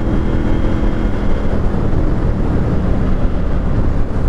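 Heavy wind rush at motorway speed over the running parallel-twin engine of a KTM 890 Duke R with an aftermarket exhaust. The engine note eases off about a second and a half in as the bike slows off the throttle in sixth gear.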